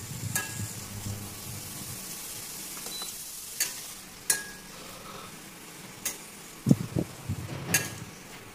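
Chopped capsicum and carrots sizzling in oil in a stainless steel pan while being stirred with a metal spatula. The spatula scrapes and clicks against the pan now and then, with a few dull knocks about two-thirds of the way through.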